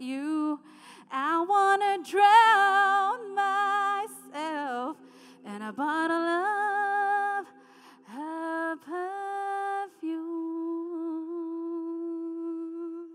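Female vocalist singing the closing phrases of a ballad into a microphone, with sliding vocal runs, then a long held final note from about ten seconds in that stops just before the end.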